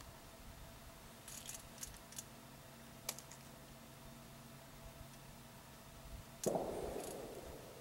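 Quiet with a few faint clicks and rustles from a hunter's clothing and gear in a tree stand, including one sharp click about three seconds in. About six and a half seconds in comes a sudden louder sound that fades over about a second.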